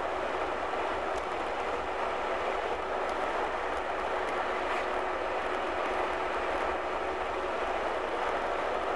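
Car driving at road speed, heard from inside the cabin: a steady rumble and hiss of tyres on pavement and the running engine.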